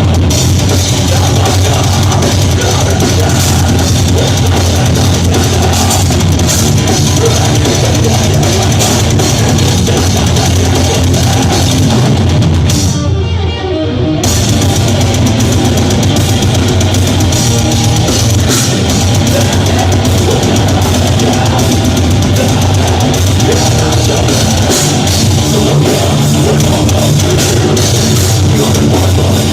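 Death metal band playing live: distorted guitars and a fast drum kit, loud and dense. About 13 seconds in, the music breaks for roughly a second; the cymbals and the high end drop out before the band comes back in.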